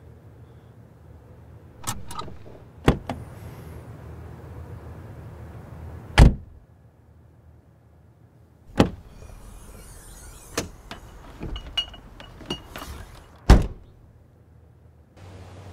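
Car door clicks and heavy thumps as someone gets out of a parked car: latch clicks, then several knocks and slams, the loudest about six and thirteen and a half seconds in, over a low steady hum.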